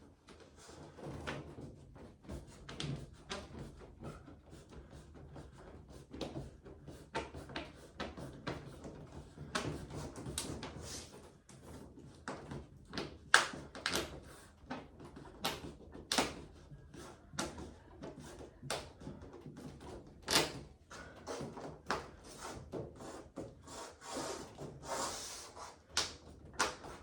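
Irregular knocks, taps and clicks of display-cabinet panels and their locking strips being handled and pressed into the frame, with a few sharper knocks, the loudest about 13 and 20 seconds in.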